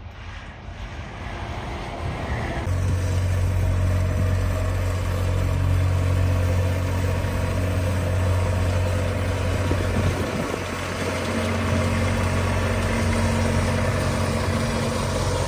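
Car engine idling: a steady low hum that settles in about three seconds in and holds even.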